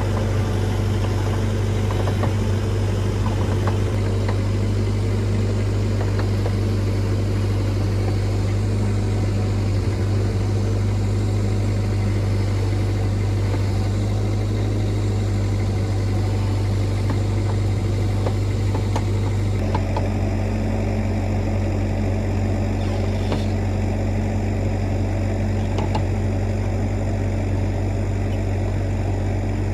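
Bobcat E26 mini excavator's diesel engine running steadily, its note changing slightly about twenty seconds in.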